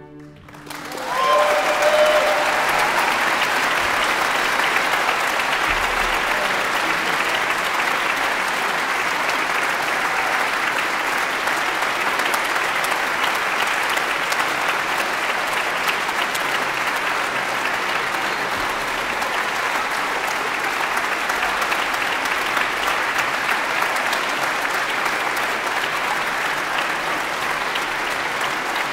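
Audience applause in a large concert hall. It breaks out about a second in, swells within a couple of seconds, and then holds as steady, sustained clapping.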